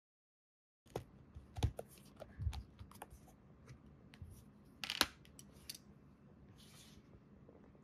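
Scattered light clicks and knocks of things handled on a desktop, with a few louder knocks and the loudest one about five seconds in, over a faint room hiss.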